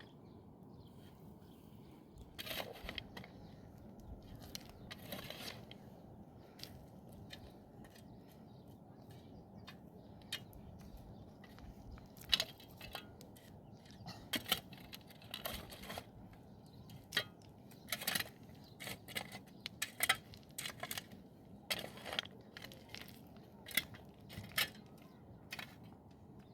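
Irregular sharp clicks and crunches at an uneven pace, becoming more frequent and louder about halfway through, over a faint steady low background.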